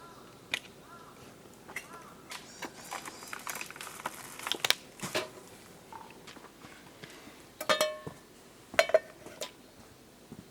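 Camp cookware being handled: scattered clicks and knocks, with two ringing metal clinks near the end.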